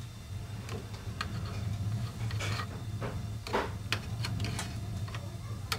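Light clicks and scrapes of hands working a small white tube at a gas pipe fitting, loudest about two and a half and three and a half seconds in, over a steady low hum.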